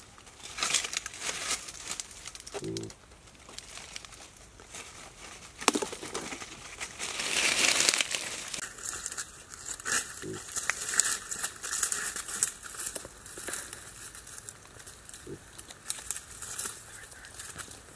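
A pig moving through dry leaf litter, the leaves rustling and crackling unevenly, with a few short low grunts.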